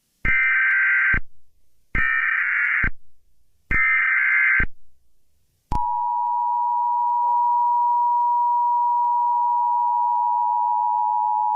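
Emergency Alert System tones: three roughly one-second bursts of SAME header data, about a second apart, then about six seconds in the two-tone EAS attention signal (853 and 960 Hz) starts and holds steady.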